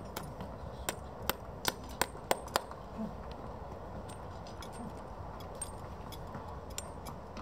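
Farrier's hammer tapping horseshoe nails into a horse's hoof: six sharp metal taps in under two seconds, then a few fainter clicks.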